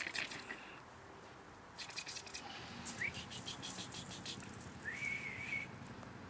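Small birds chirping: several short bursts of quick, high twittering notes and a brief wavering whistle-like call about five seconds in.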